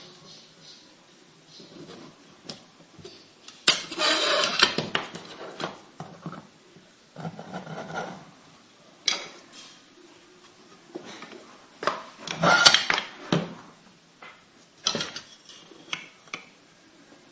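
Small toy pieces being handled and set down on a hard surface: irregular clicks, knocks and rubbing, busiest about four seconds in and again about twelve seconds in.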